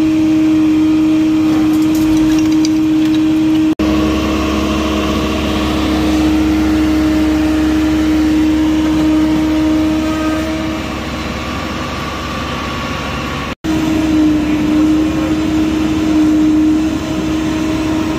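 John Deere backhoe loader's diesel engine running steadily under load as it works its boom, with a constant droning tone over the engine noise. The sound cuts out for an instant twice.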